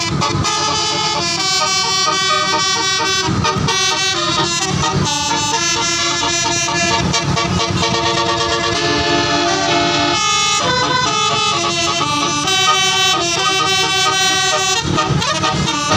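Tour bus 'telolet' multi-tone horn playing a tune: several horn tones sound together as chords that change in quick steps.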